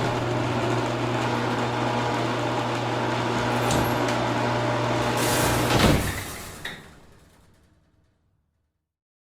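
Motorised garage door opening: a steady electric hum with rattling for about six seconds, a louder clunk as it comes to a stop, then a fading run-down with a small click.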